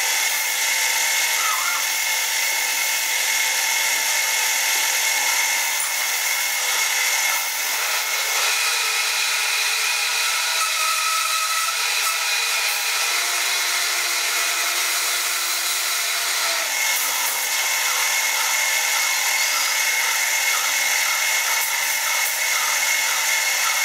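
Warco Super Mini Lathe running, its brushless motor giving a steady high whine while the tool takes a cut along an aluminium bar.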